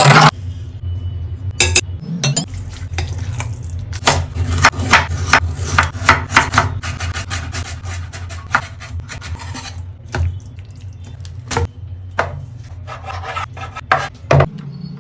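Cooking utensils clinking and scraping against a pan or dish in a run of quick sharp strokes, busiest in the first half, over a steady low hum.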